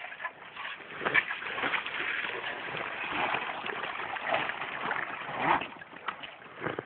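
Mountain bike's slick tyres churning and splashing through deep wet mud, the rear wheel slipping for grip. The splashing picks up about a second in and eases off near the end.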